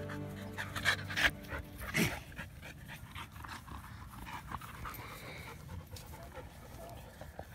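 Dog panting in quick, short breaths close to the microphone, with a few louder sudden sounds about one and two seconds in. Background music fades out during the first second or two.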